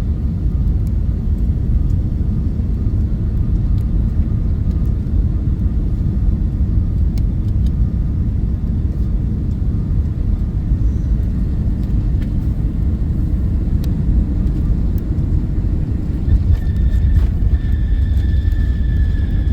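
Jet airliner engine noise: a steady low rumble, with a high whine, falling slightly in pitch, joining about three-quarters of the way through.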